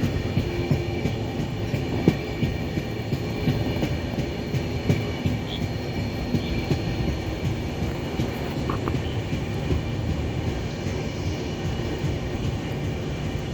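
A train running on the tracks: continuous running noise with many irregular low knocks and rattles.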